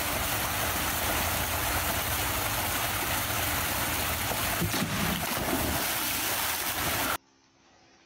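Steady, loud rushing hiss, even across all pitches, that cuts off suddenly about seven seconds in.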